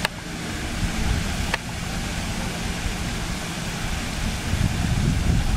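Outdoor rushing noise with a heavy, uneven low rumble, typical of wind on the camera microphone, and a sharp click about one and a half seconds in.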